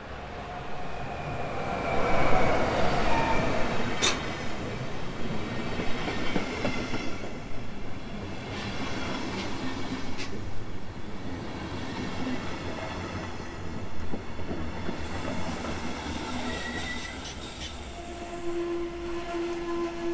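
Alex regional passenger train running, heard from on board: a steady rumble of wheels on the track with a few sharp clicks over the rails and a short high wheel squeal near the end.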